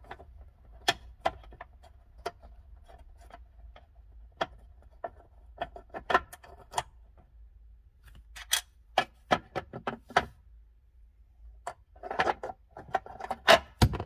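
Small irregular metallic clicks and ticks of a stubby Phillips screwdriver backing out a small screw and the metal glove box latch being worked loose. A denser run of louder clicks and knocks comes near the end, as the screwdriver and screws are set down on the metal glove box door.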